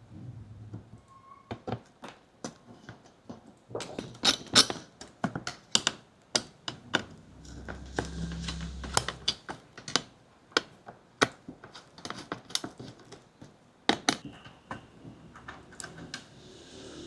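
Irregular sharp clicks, taps and knocks of computer parts being handled and fitted together during a PC assembly, with a brief low hum about halfway through.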